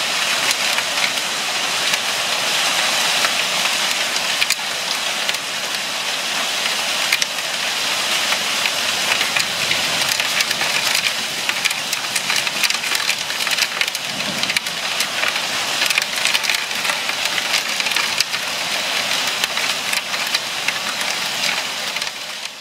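Heavy hail pelting down onto paving and a pool cover: a dense, steady clatter of countless small hits with sharper single strikes standing out all through.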